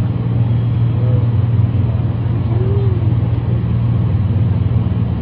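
Motor vehicle engine running with a steady, unchanging low hum.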